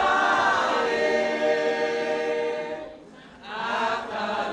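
A group of men and women singing together, holding long notes, with a short breath break about three seconds in before the next phrase starts.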